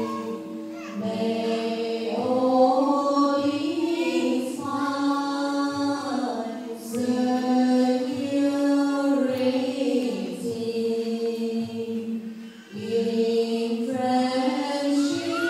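Group of voices chanting a Buddhist liturgy in unison: a slow, melodic chant of long held notes that step up and down in pitch, with short breaks for breath every couple of seconds.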